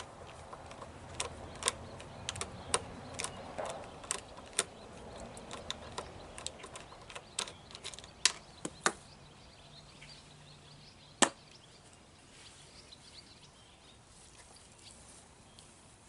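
Irregular sharp clicks and taps of hand tools and small carburetor parts being handled while a Mercury outboard carburetor is taken apart, thick for the first nine seconds, then one loud click about eleven seconds in, followed by faint handling sounds.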